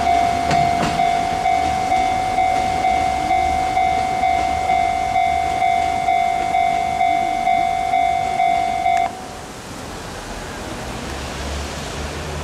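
Japanese level-crossing warning bell ringing in a steady electronic 'kan-kan' of nearly two strokes a second, cutting off suddenly about nine seconds in once the train has cleared. Under it, the rail-transport train's running noise fades away.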